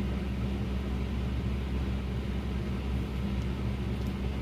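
Steady low hum of running machinery: a deep drone with a second, higher steady tone above it, unchanging throughout.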